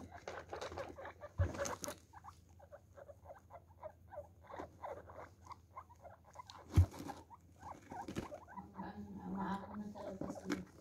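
Guinea pigs shuffling on wood-pellet bedding, the pellets rustling and clicking, with soft short guinea pig calls throughout. There are two dull thumps, about a second and a half in and near seven seconds. In the last two seconds, while one is stroked, there is a low purr.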